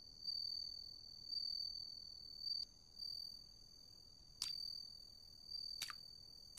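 Faint crickets chirping: a steady high-pitched trill that swells and fades, with three sharp clicks in the second half.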